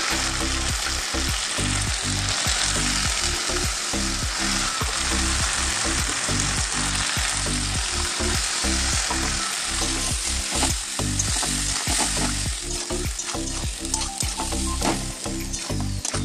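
Chicken pieces and sliced onions sizzling in hot oil in an aluminium kadai while a metal spatula stirs and scrapes the pan. The spatula clicks against the pan more often in the second half.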